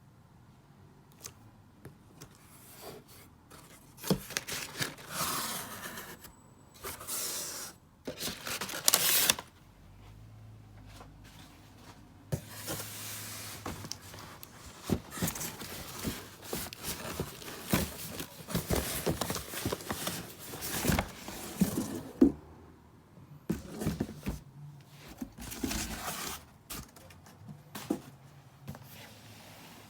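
A cardboard sneaker box and its paper wrapping being handled and opened: irregular rustling and scraping with scattered knocks, the loudest stretches about four to nine seconds in and again from about twelve seconds to near the end.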